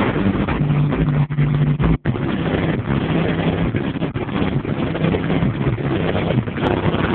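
Motor vehicle engine running steadily with a low hum, heard through a phone's microphone; the sound cuts out for a moment about two seconds in.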